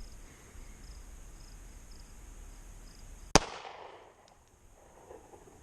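A single pistol shot about three seconds in, from a Glock 42 firing a 9x18 Makarov round through an Alpha Wolf conversion barrel, followed by a short echo that fades out.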